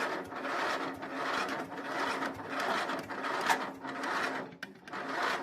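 Electric starter cranking the small engine of a riding mower, a rhythmic chugging whir that does not catch. The starter's positive wire is loose and begins to smoke.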